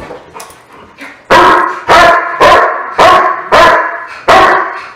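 Doberman barking repeatedly, about six loud barks roughly half a second apart, starting about a second and a half in. It is a trained bark for the tug toy, as taught in IPO bark-and-hold work.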